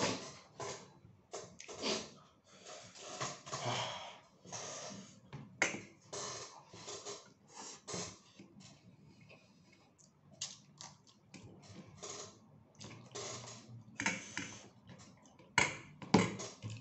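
Close-up eating sounds: a man chewing and smacking his lips on rice and sardines eaten by hand, with his fingers working the food on a plate. Irregular soft clicks and wet smacks.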